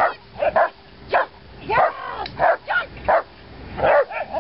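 A dog barking, a quick string of about ten short, high barks.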